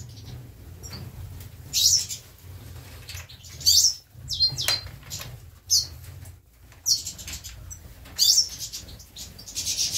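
Captive European goldfinches calling in an aviary: short high chirps every second or two, over a steady low hum.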